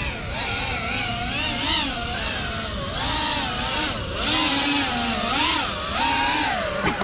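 GEPRC CineLog35 cinewhoop FPV drone's brushless motors and propellers whining in flight, the pitch rising and falling over and over as the throttle and sticks are worked.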